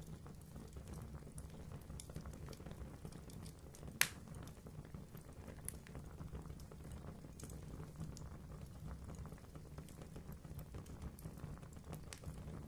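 Fire in a fireplace crackling, with sharp pops scattered over a steady low rush of flame. One pop about four seconds in is much louder than the rest.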